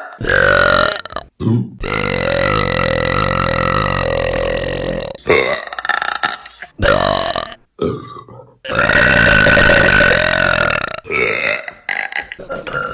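A run of women's loud, drawn-out burps, one after another with short breaks between them; the longest, starting about two seconds in, lasts around three seconds.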